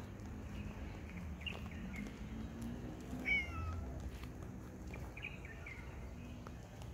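A cat meows once about three seconds in, a single call that falls in pitch.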